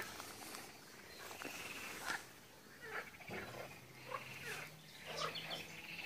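Short animal calls repeating every second or so, some sliding in pitch and some buzzy trills, over a faint steady low hum.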